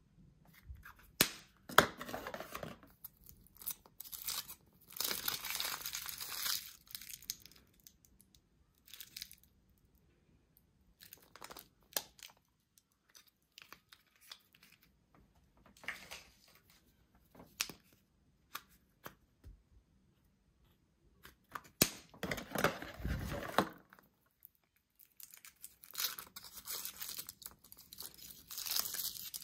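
Foil wrappers of Kinder Surprise chocolate eggs being torn open and crinkled by hand, in several bursts of rustling with a few sharp clicks between them.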